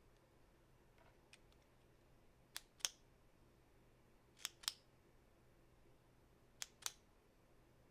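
A retractable ballpoint pen's push button clicked three times in pairs, each pair a quick click-click about a quarter second apart, a couple of seconds between pairs.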